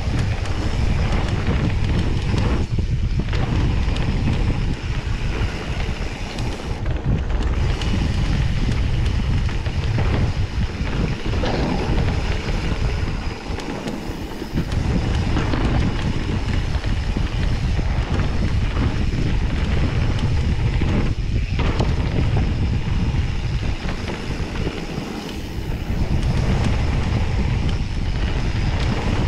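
Wind buffeting the microphone over the rumble of mountain bike tyres rolling fast down a dirt flow trail. The noise eases briefly a few times.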